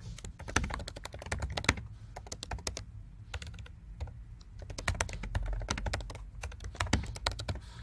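Typing on a computer keyboard: runs of quick, uneven keystrokes with brief pauses between words.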